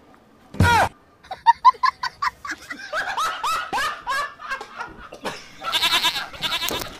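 A quick falling swoosh, then a run of short, high, bleating calls at about three a second that sound like laughter, ending in a denser burst near the end.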